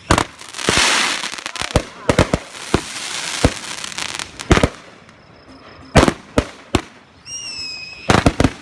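Fireworks finale: a string of loud aerial bursts and bangs, with a crackling haze after a burst about a second in. Near the end a whistling firework sounds briefly, then several bangs follow in quick succession.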